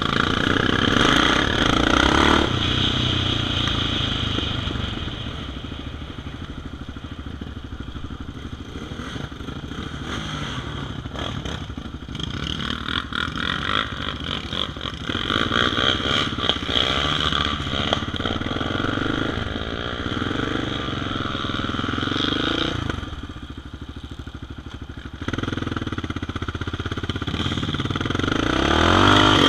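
ATV (quad bike) engine running under load, the throttle rising and falling as it rides over rough ground, with some rattling. It eases off for a couple of seconds about three quarters of the way through, then revs up again near the end.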